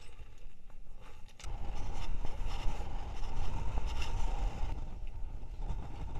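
Wind buffeting a body-worn camera's microphone, with scrapes and light knocks as a person climbs through a tower crane's steel lattice mast. The wind rumble grows louder about a second and a half in.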